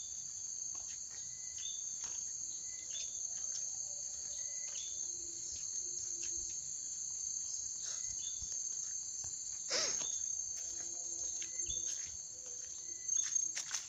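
Steady high-pitched drone of forest insects, with short chirps repeating every second or so over it and a single sharp snap or knock about ten seconds in.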